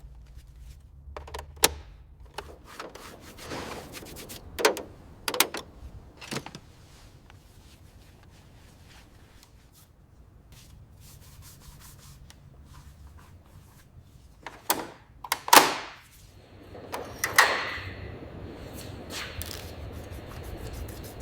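Hand work on a car part: scattered sharp taps and knocks, with stretches of sanding and rubbing. A louder cluster of knocks and scrubbing comes about fifteen to eighteen seconds in.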